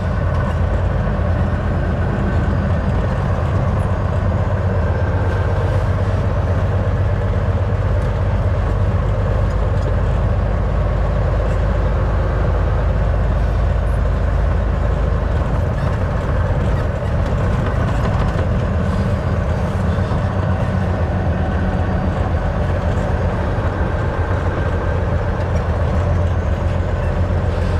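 Semi truck's diesel engine running at a steady speed with tyre and road noise, heard from inside the cab while driving.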